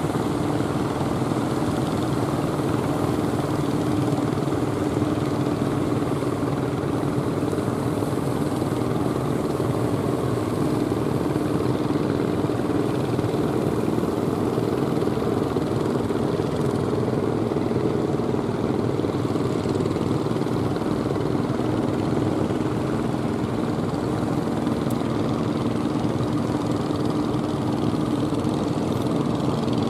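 Steady drone of a fishing boat's engine running at an even pitch, over the wash of the surf.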